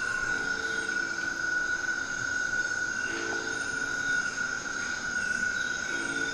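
Electronic sound-installation playback through small speakers: a steady high tone held throughout, layered with fainter thin steady pitches above it, and short lower tones that come in a few times, with little bass.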